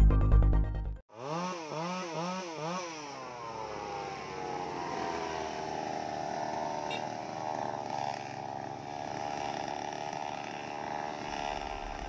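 Music cut off about a second in, then a chainsaw revved four times in quick succession and left running steadily, as a storm-felled tree across a road is being cut up.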